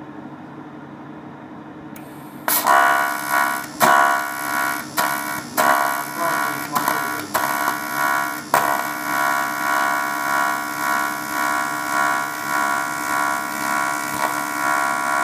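TIG (argon-arc) welding arc from an inverter welder, run without filler rod, giving a loud even-pitched buzz. It strikes about two and a half seconds in, cuts out and restarts several times over the next few seconds, then holds steady for the rest. A low steady hum sits underneath throughout.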